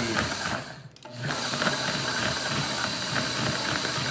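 Countertop blender running at speed, puréeing rehydrated dried chili peppers in beef broth into a thick paste, just turned up from a slow start. The sound drops away briefly about a second in, then runs on steadily.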